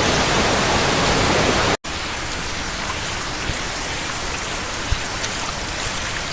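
Rushing water of a waterfall stream, cut off abruptly about two seconds in. Then comes a quieter steady hiss with scattered light ticks of rain falling in a drizzle.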